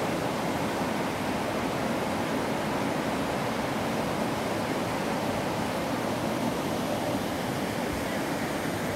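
The fast-flowing Jaldhaka river rushing over boulders in white-water rapids: a steady, unbroken rush of water.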